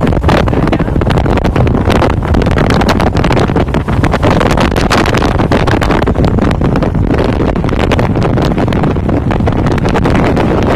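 Strong wind buffeting the microphone: a loud, rough, unbroken rush, heaviest in the low end, full of rapid crackling hits.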